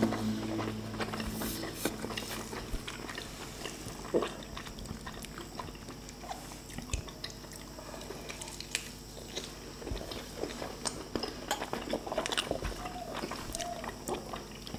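Close-miked chewing and mouth sounds of people eating soft lempeng (Malay flour pancake) by hand: scattered small wet clicks and smacks as the pancake is bitten, torn and chewed.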